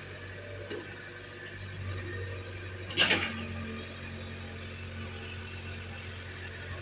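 Excavator's diesel engine running steadily, with a single sharp knock about three seconds in.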